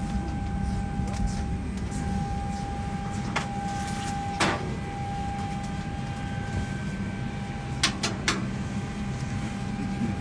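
Steady low hum of the parked airliner's cabin ventilation, with a thin steady whine over it. A few sharp knocks and clicks come through, about midway and three close together near the end, as the metal lion-cage panels are handled and fitted.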